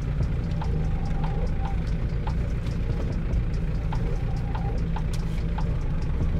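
Steady low rumble of a car's engine and tyres on asphalt, heard from inside the car as it drives. Light clicks come at irregular intervals, roughly every half second to a second.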